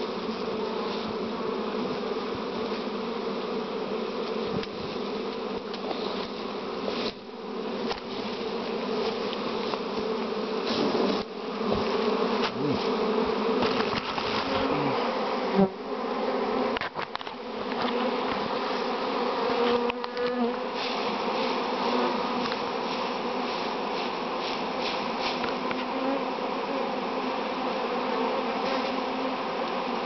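Dense, steady buzzing of a honeybee swarm, many bees flying close around. A few handling bumps and rustles break in near the middle, the loudest at about two-thirds of the way through.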